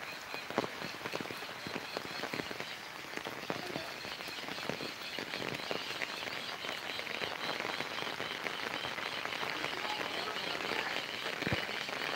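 Heavy rain falling on an umbrella held overhead: a steady hiss dense with the sharp ticks of drops striking the canopy.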